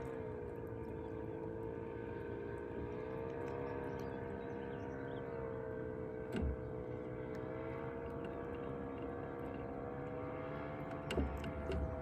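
A steady engine drone with a slowly wavering pitch, from a motor some way off, with two short low knocks partway through.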